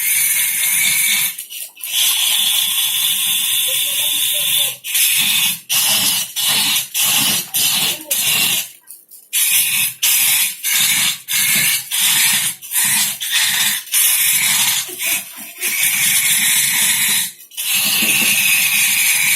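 A tool cutting wood in short, repeated passes, each a harsh burst of noise that stops and starts about once or twice a second, some passes carrying a high squeal.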